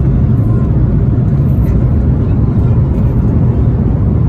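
An airliner's jet engines at takeoff thrust during the initial climb, a loud, steady, low roar heard from inside the cabin.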